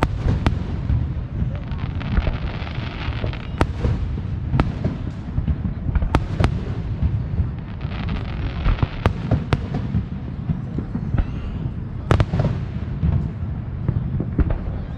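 Fireworks going off: a string of sharp bangs and pops at irregular intervals over a steady low rumble, with two stretches of crackling.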